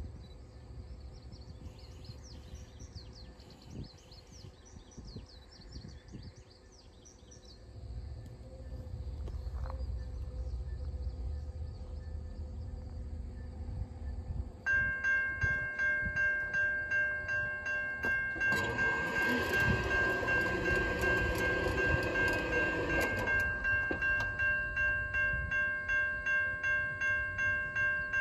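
Railroad grade crossing bell starting up about halfway through and ringing steadily at about two strokes a second, the warning that a train is approaching the crossing. For about five seconds a louder rush of noise sounds over the bell. Before the bell there are only faint insect chirps and low wind rumble.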